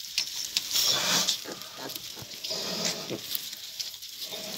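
Newborn piglets and their sow grunting in short, irregular bursts.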